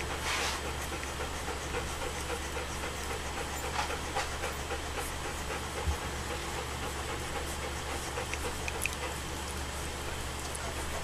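Alaskan Malamute puppies nursing from their mother: faint dog sounds over a steady hiss and low hum, with two short rushing sounds, near the start and about four seconds in, and a brief soft thump near six seconds.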